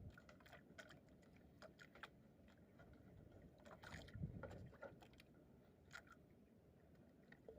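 Near silence with faint scattered small clicks and ticks, and a soft thud about four seconds in.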